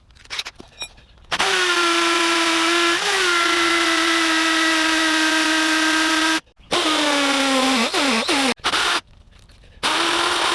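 Power drill boring into a concrete slab, its motor running in a steady whine. It starts about a second in and runs for around five seconds. It stops briefly, then runs again with its pitch dropping as it bogs under load. It stops again and starts up once more near the end.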